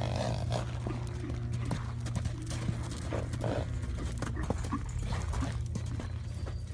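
A horse's hooves beating on sandy ground as it trots and canters loose, in a run of irregular dull footfalls. A steady low hum runs underneath.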